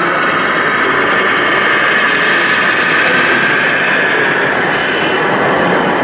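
Scale RC construction machines working: a steady whine of their hydraulic pumps and electric motors over a continuous noisy hall background, with a brief higher whine near the end.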